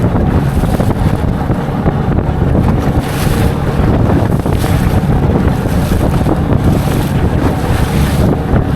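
A small flat-bottom boat under way in choppy water: heavy wind buffeting the microphone and rushing water over the low, steady drone of the boat's motor, with louder surges about three seconds in and again near five and seven seconds.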